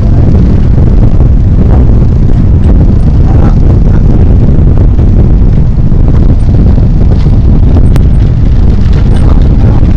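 Strong wind buffeting the microphone: a loud, steady low rumble with no letup.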